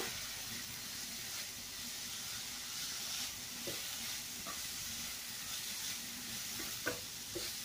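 Chopped amaranth (cheera) leaves with crushed coconut sizzling softly in a frying pan while being stirred with a spatula, with a few faint taps of the spatula against the pan.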